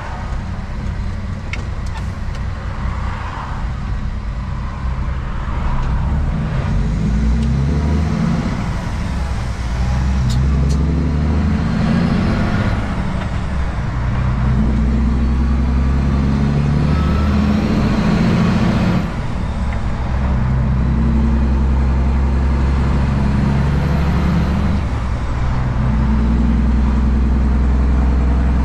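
Heavy truck's diesel engine pulling away from a standstill, heard from inside the cab. The revs climb and drop back several times as the driver upshifts through an 18-speed Road Ranger manual gearbox, and it gets louder as the truck gathers speed.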